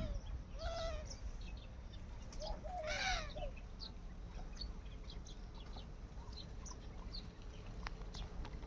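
Pet teetar (francolin) making soft calls: two short, arching calls, one near the start and one about three seconds in, among many short high chirps and a few light clicks.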